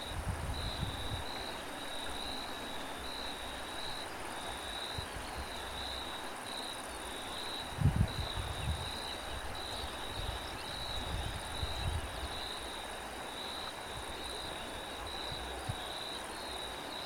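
Crickets chirping in a steady run of short high pulses, about one and a half a second. Wind rumbles on the microphone in gusts, loudest about eight seconds in.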